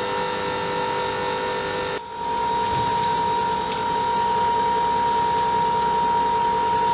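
Steady machinery hum with several constant whining tones. About two seconds in it cuts off abruptly to a different steady hum with one clear tone, and a few faint ticks follow.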